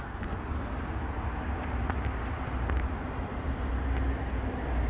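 Low rumble of an approaching train growing slowly louder, with a faint high wheel squeal beginning near the end.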